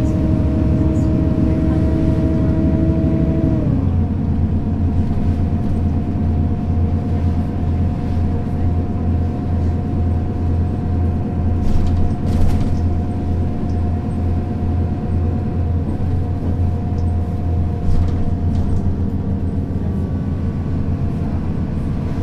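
Mercedes-Benz O 530 Citaro city bus's diesel engine running under way. About four seconds in, the engine note drops suddenly, typical of an upshift in the ZF automatic gearbox, then holds steady, with a few brief knocks or rattles near the middle.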